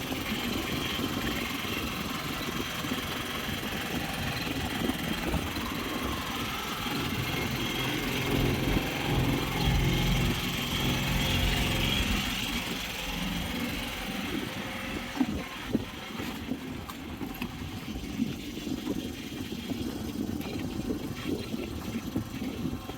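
Boat engine running steadily. It gets louder for a few seconds around the middle, then eases off.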